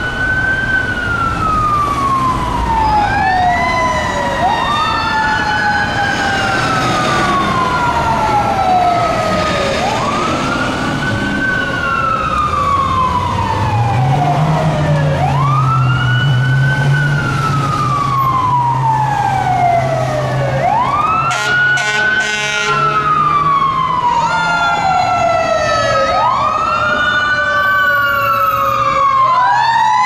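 Fire truck sirens wailing in repeated sweeps about every four to five seconds, each climbing quickly to its peak and then falling away slowly, with a second siren sweeping out of step with the first. Short air horn blasts sound about two-thirds of the way through.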